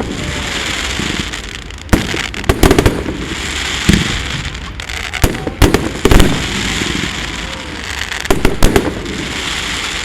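Fireworks going off: a series of sharp bangs, several in quick clusters, over a steady hissing crackle.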